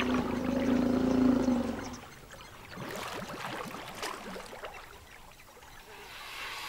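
African elephants drinking at a pool: a low, drawn-out moaning tone with a deep rumble under it for about the first two seconds, then scattered wet clicks and crackles of water being sucked up and dripping from the trunks.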